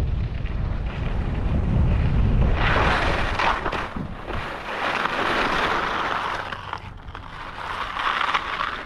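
Wind rumbling on a helmet-mounted action camera's microphone, fading after about two and a half seconds, then skis scraping and hissing over hard, icy snow in three skidding spells as the skier brakes to a stop.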